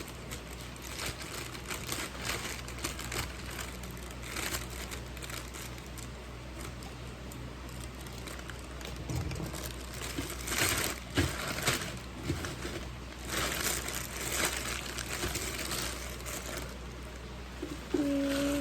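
Plastic packaging crinkling and rustling as a watering can is unwrapped by hand, with louder bouts of crinkling about two-thirds of the way through.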